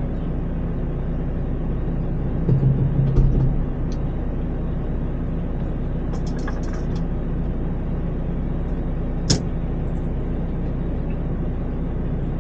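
Campervan engine idling steadily, heard from inside the cab, with a brief louder stretch about two and a half seconds in and a single sharp click near the end.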